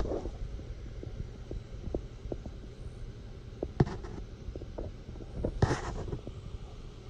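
Wind rumbling low on a handheld microphone, with scattered soft clicks of footsteps and handling on dry grass and a brief rustle near the end. The jet's electric ducted fans are not running.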